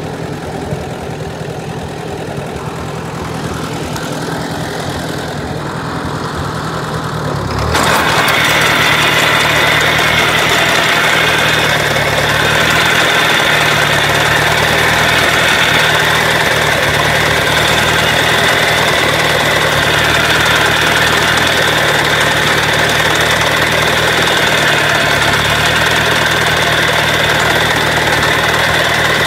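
Ford 860 tractor engine running steadily while its sickle bar mower cuts oats. About eight seconds in, the sound turns suddenly louder and brighter, then holds steady.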